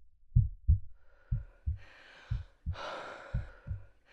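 Heartbeat thudding in double beats, about one 'lub-dub' a second. Over it a woman breathes heavily: a long breath in from about a second in, then a louder sigh out around three seconds in.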